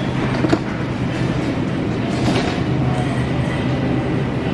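Steady supermarket background noise: a continuous rumble with a low hum and a few faint clatters, like cart and floor noise in the aisles.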